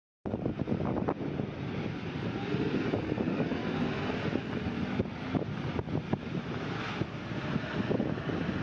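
Wind buffeting the microphone, with a vehicle engine running beneath it; the sound cuts in suddenly just after the start.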